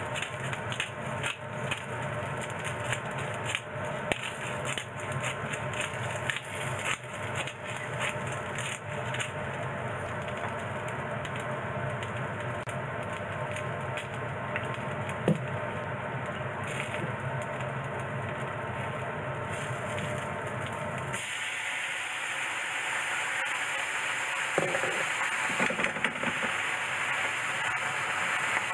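Vegetables frying in a hot frying pan, a steady crackling sizzle with many small pops. About three-quarters of the way through it turns abruptly into a louder, hissing sizzle as mirin added to the pan boils off, with a few knocks of the cooking chopsticks against the pan near the end.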